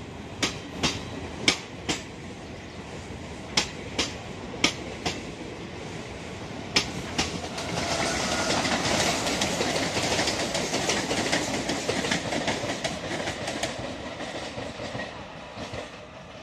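Indian Railways passenger coaches rolling past, their wheels clacking sharply in pairs over rail joints. About eight seconds in, a louder rumble and hiss from a suburban electric multiple-unit train on the next track builds up, then fades away toward the end.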